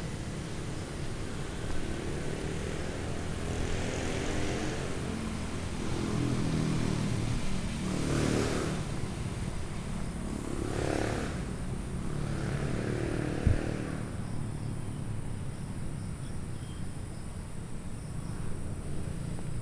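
Several motor vehicles passing one after another, each engine note swelling and then fading, over a steady background rumble of traffic.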